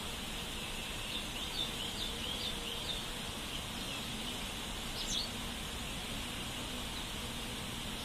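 A bulbul chirping: a quick run of short, high notes for about two seconds, then one more rising note about five seconds in, over a steady background hiss.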